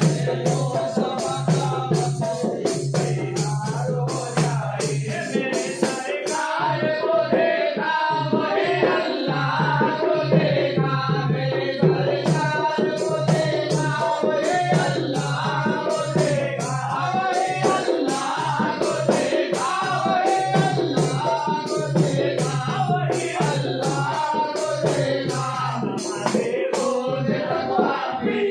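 Men singing a devotional chant together over a steady sharp beat of about three strokes a second.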